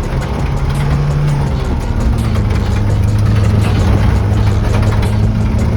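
Toyota Blizzard 4x4's engine running steadily as it drives, heard from inside the cab; its pitch settles a little lower about two seconds in.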